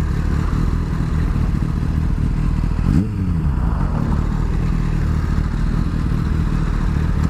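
Sport motorcycle engine running under way, its revs climbing and dropping back at gear changes, once about three seconds in and again near the end.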